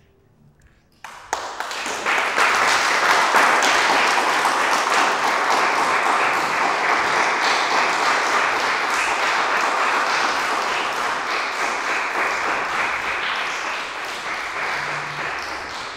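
Audience applauding: the clapping breaks out about a second in, builds to full strength within a second and holds, thinning a little near the end.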